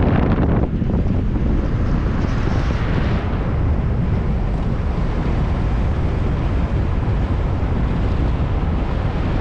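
Wind buffeting a microphone mounted outside a moving car, a steady heavy rush with the car's road and tyre noise underneath.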